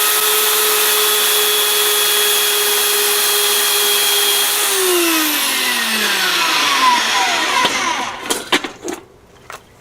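Harbor Freight band saw running steadily with a freshly changed blade, then switched off about five seconds in, its motor whine gliding down as it coasts to a stop. A few sharp knocks follow near the end.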